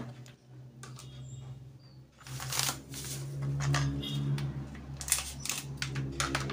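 Plastic seasoning sachets rustling and crinkling in several short bursts as they are picked up and handled on a plastic tray, with a steady low hum underneath.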